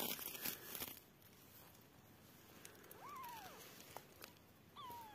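Woven plastic sacking rustles and crinkles for about the first second as it is brushed. Then a newborn kitten gives two thin, high mews, each rising then falling in pitch: one about three seconds in and a shorter falling one near the end.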